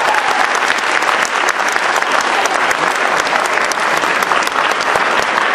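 Audience applauding, dense steady clapping throughout.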